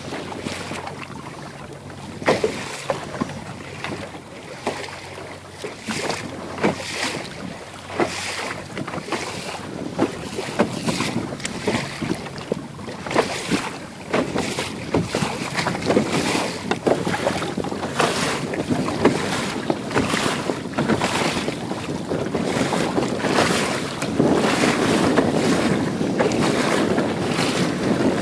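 Wind buffeting the microphone over the rush of water along the hull of a Laser sailing dinghy under sail, with many sharp slaps and splashes as the hull meets waves. It grows louder over the last few seconds.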